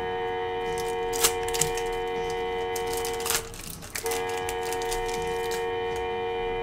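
A gold foil wrapper on a Panini Prizm basketball card pack is ripped open by hand, with a few sharp tearing crackles about a second in and again near the middle. Under it a steady held musical tone plays; it breaks off for about half a second midway and then resumes, and it is louder than the tearing.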